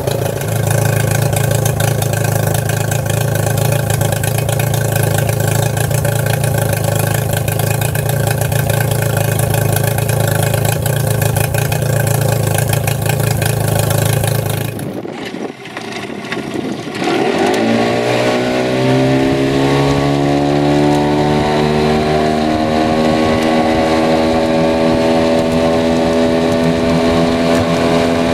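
2010 Yamaha 9.9 hp two-stroke tiller outboard motor running steadily. Then, after a break, the same motor drives a boat: its pitch rises as it is throttled up, then holds steady at speed.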